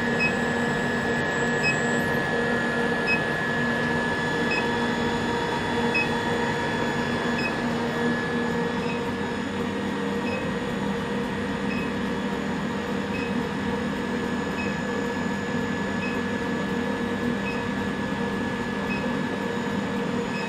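A 40 kW induction heater running steadily as it heats a steel flat bar red hot in its coil. It is a constant hum with a high whine, and a faint tick comes about every second and a half.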